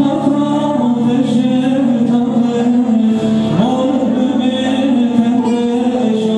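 A man sings a long, ornamented vocal line, holding notes and bending their pitch, over an amplified bağlama (long-necked Turkish lute).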